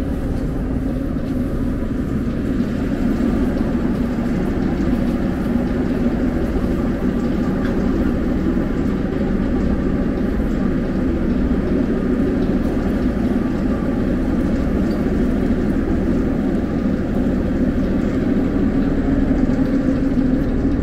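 St. Petersburg metro train heard from inside the passenger car: a steady low rumble of the running train, growing a little louder about three seconds in.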